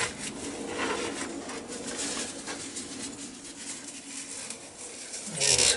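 Paper tissue rubbing and scrubbing around the inside of the metal reservoir bowl of a Yamaha XS650 front brake master cylinder, cleaning out crud. Louder rubbing near the end.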